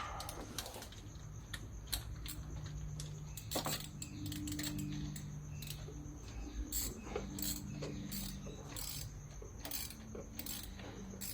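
Hand ratchet clicking in short, irregular strokes as a thermostat housing bolt is tightened down.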